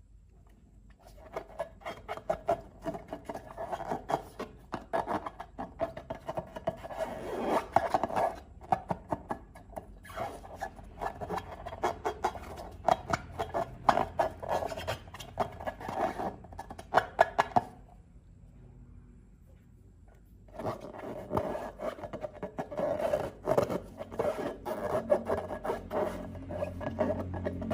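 Slime worked by hand, a rapid sticky crackling and rubbing, in two long stretches separated by a pause of about two seconds.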